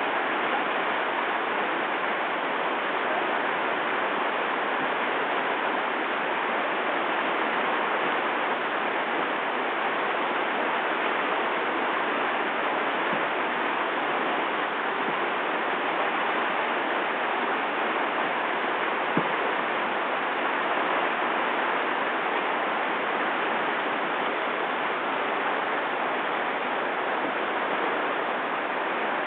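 River whitewater rushing steadily through a rapid, an even wash of water noise.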